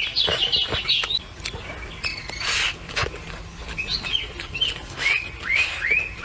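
Small birds chirping in a string of short rising and falling notes, with close-up chewing and smacking as someone eats.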